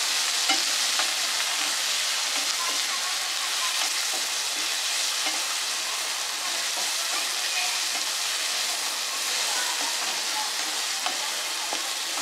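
Onions frying and sizzling in hot oil, steadily, while being stirred, with occasional small scrapes and taps against the pan.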